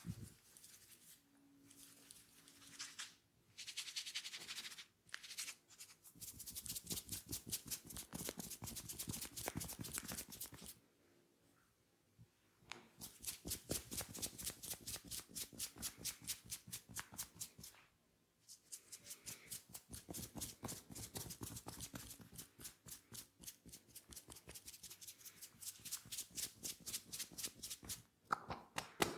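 Hands tapping rapidly and evenly on the head and body in a percussive massage, in several runs of quick strokes with short pauses between, after a few softer scattered sounds at the start.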